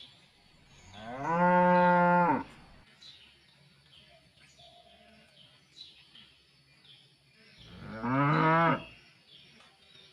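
Cattle in a pen mooing twice: a long moo about a second in, then a shorter one near the end.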